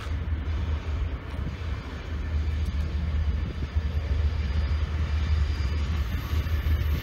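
Diesel locomotive approaching along the track, its engine a steady low rumble that grows a little louder from about two seconds in.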